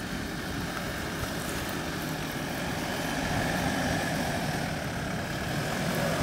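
Kia Sorento SUV's engine running steadily under load as it climbs a steep slope, growing somewhat louder as it approaches.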